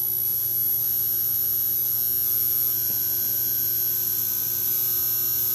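PWM-driven resonant rods in a water-filled HHO electrolysis cell vibrating with a steady, piercing high-pitched whine over a low electrical hum, the sound of the rods being driven at or near resonance.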